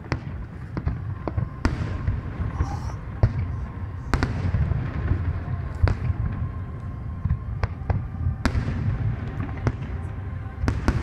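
Aerial fireworks shells bursting: sharp bangs at irregular intervals, the strongest about four and eight and a half seconds in, over a low continuous rumble.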